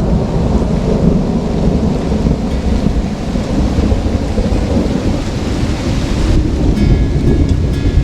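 Thunder rumbling continuously through steady rain.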